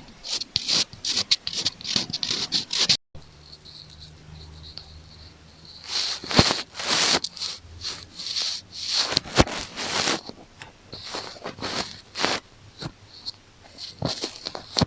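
Close-miked ASMR ear-cleaning scratching and rubbing on an earphone or microphone: a run of short, irregular scratchy strokes, with a brief cut to silence about three seconds in.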